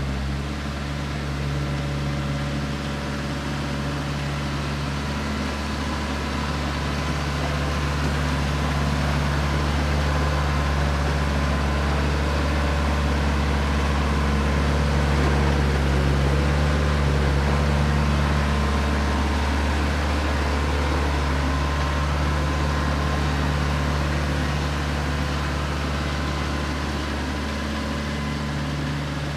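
Branson 4520 tractor's diesel engine running steadily as the tractor drags a box blade over dirt. It grows louder as the tractor passes close about halfway through, then fades as it moves away.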